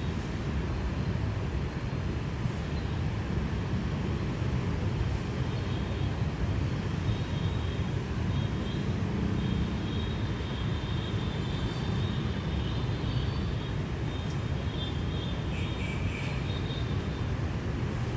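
Twin-engine jet airliner on final approach, still some way off: a steady low rumble with a faint high engine whine that comes and goes above it.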